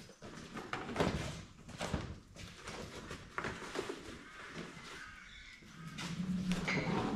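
Workshop handling sounds: knocks and scraping as a flexible orange ducting hose is dragged across a brick floor and fitted to a saw bench. A low steady hum comes in about six seconds in.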